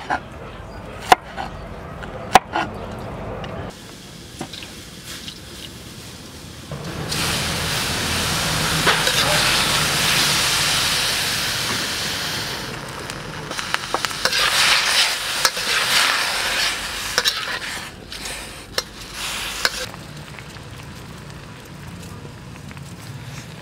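A few sharp strikes of a knife chopping greens on a wooden board. About seven seconds in, greens hit a hot wok and sizzle loudly, the sizzle then coming and going unevenly before settling to a quieter steady sizzle.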